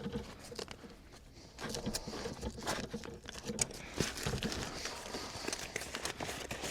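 Hand tools and a fabric tool roll being handled: scattered small metal clicks and knocks over rustling, starting about one and a half seconds in.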